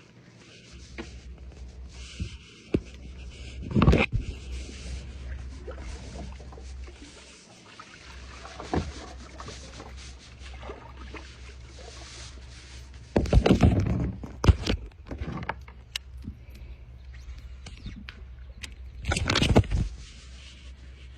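Knocks and scrapes of gear and hands on a fishing kayak, with a few loud thumps several seconds apart over a steady low rumble.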